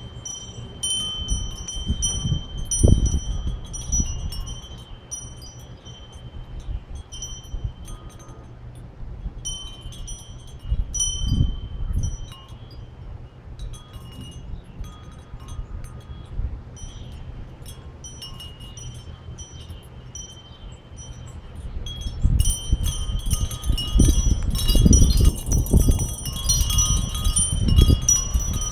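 Wind chimes ringing in the wind, high tones struck on and off, with gusts rumbling on the microphone; near the end a stronger gust sets them ringing busily.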